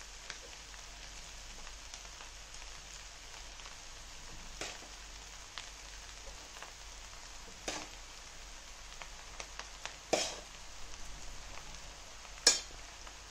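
Fried rice frying in a hammered aluminium kadai with a steady sizzle. A few sharp knocks of the metal ladle against the pan come through, the loudest near the end.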